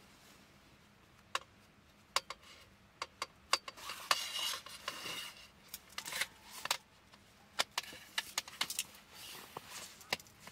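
Folding camp cot being assembled: its metal frame clicking and knocking as the end bar is fitted, with short bursts of the cot's fabric rustling and rubbing.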